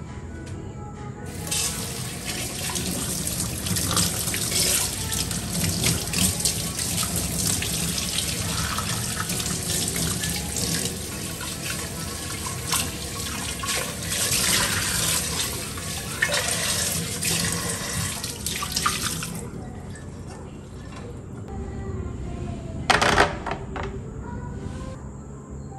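Water from a pull-down kitchen faucet's spray head running over a non-stick frying pan being rinsed in the sink, shutting off about three-quarters of the way through. Near the end there is a single short, loud knock as the pan is set down on a plastic drying tray.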